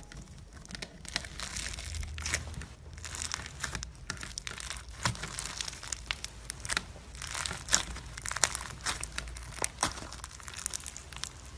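Crunchy slime packed with small beads being squeezed and kneaded by hand, giving a run of irregular crackling, popping clicks.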